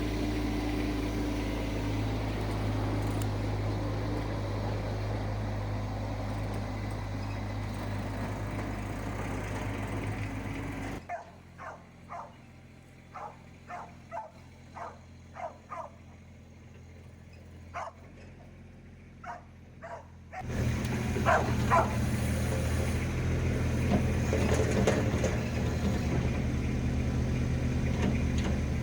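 Mini skid steer's engine running steadily under work. About eleven seconds in the engine sound drops out and a dog barks in short repeated barks for about nine seconds, then the engine running resumes.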